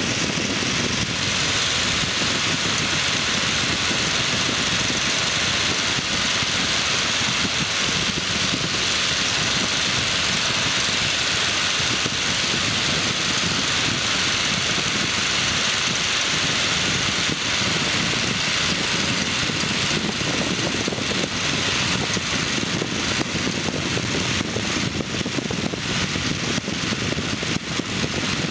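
Microlight aircraft's engine and propeller running steadily at cruise power, mixed with rushing wind in the open cockpit.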